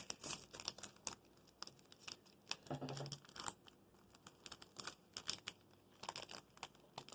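Foil booster-pack wrapper being torn and crinkled open slowly, a run of faint, irregular crackles and small rips; the pack is not opening cleanly. A brief murmur of a voice about three seconds in.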